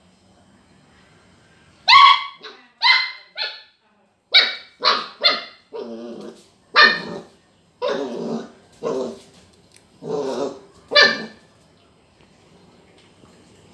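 Border collie puppy barking about a dozen times in quick, uneven bursts, starting about two seconds in and stopping a couple of seconds before the end. It is barking in excitement at a lemon wedge, an object it has never seen before.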